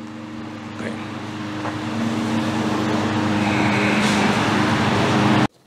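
Motor vehicle engine hum with road noise, growing steadily louder over about five seconds and cutting off suddenly near the end.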